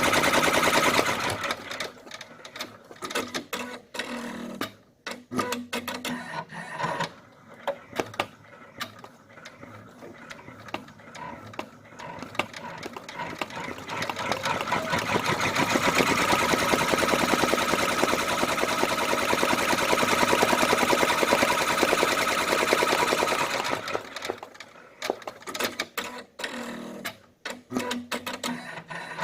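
Brother computerized multi-needle embroidery machine stitching: a fast, even needle rhythm at first, then a stretch of scattered clicks and mechanism noise as it slows and repositions. It ramps back up to full-speed stitching, then falls back to intermittent clicks near the end.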